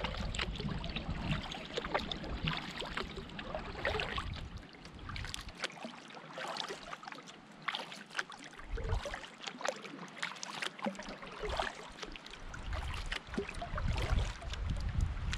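Canoe paddling: water splashing and trickling off the paddle as it moves through the water, with wind buffeting the microphone at the start and again near the end.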